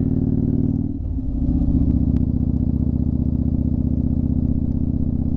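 Motorcycle engine running at road speed, with a brief dip in level and pitch about a second in, then running steadily again.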